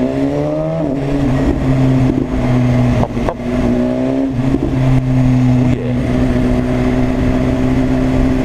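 BMW S1000RR inline-four engine pulling under way, rising in pitch twice as the bike accelerates, then holding a steady note. A sharp knock comes about three seconds in.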